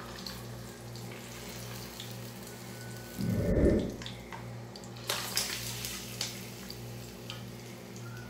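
Tilapia frying in hot oil in a pan: a steady sizzle, with sharp crackles and spitting pops from about five seconds in as the pieces are turned with tongs. A loud dull thump comes about three and a half seconds in.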